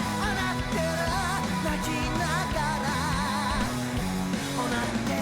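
J-rock anime opening theme: a sung vocal with wide vibrato over bass, guitar and drums.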